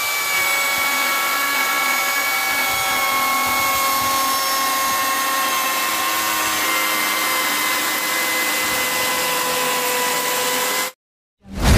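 Angle grinder motor running at speed with a steady high whine that sinks slightly in pitch; it stops abruptly about eleven seconds in.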